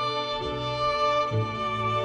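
Bowed string ensemble playing instrumental music for a musical: a violin line held over cello notes, with the low note moving to a new one a little past halfway.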